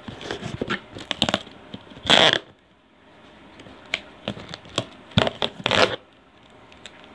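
Folding knife blade scraping and slicing along packing tape on a cardboard shipping box, with crackling of tape and paper as a stuck-on label is pulled away. Louder rasping bursts come about two seconds in and again between five and six seconds.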